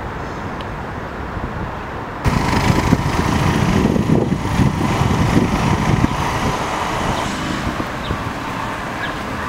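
Urban outdoor ambience: steady road-traffic noise with wind rumbling on the microphone. The sound jumps suddenly louder and fuller about two seconds in.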